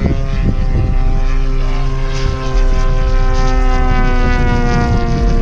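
Propeller-driven radio-controlled model airplane flying overhead, its engine note running steadily, then getting louder about two and a half seconds in and sliding slowly down in pitch.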